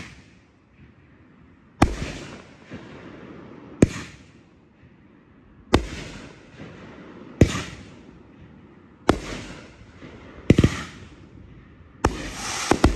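Boom Wow "Freedom First" 500-gram consumer firework cake firing shot after shot: about eight sharp booms roughly every one and a half to two seconds, each trailed by a fading rush, with the last few closer together and followed by a longer, denser tail.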